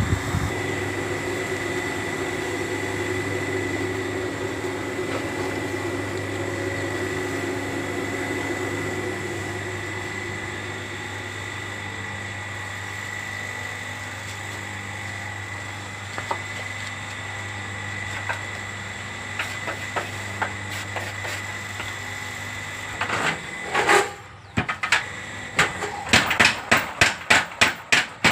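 Steady machine hum with scattered knocks, then near the end a power hammer starts striking in a fast even rhythm, about three blows a second.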